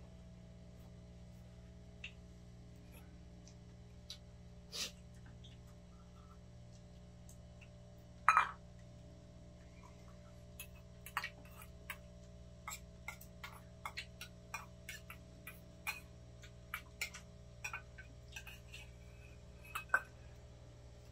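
Metal spoons and chopsticks clinking against small metal bowls and pans during a meal. Scattered sharp clinks come sparsely at first, the loudest about 8 seconds in, then several a second in the second half, over a steady low hum.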